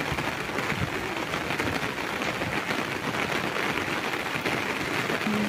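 Heavy monsoon rain falling on the open water of a flooded pond, a steady hiss.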